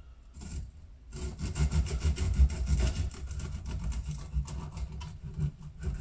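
Serrated bread knife sawing back and forth through a dense, crusty homemade loaf, starting about a second in: a rasping scrape with dull knocks on the board.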